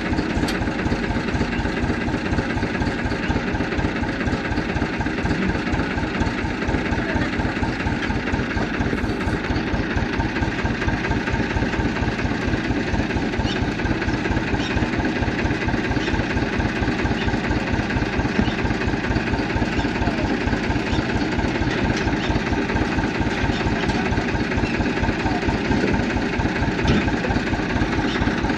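Tractor engine idling steadily with an even, rapid low chugging.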